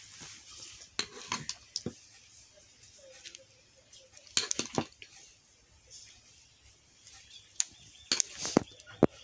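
Table knife spreading mayonnaise on a bread slice: short scrapes of the blade on the bread and clicks of the knife against the small mayonnaise bowl, in a few clusters, with the sharpest click near the end.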